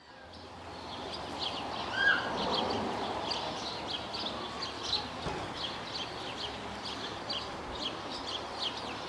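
Birds chirping: many short, quick high chirps repeating over a soft outdoor background hiss that fades in over the first second.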